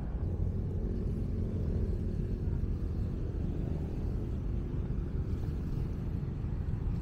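Steady low outdoor rumble with no distinct events, at an even level throughout.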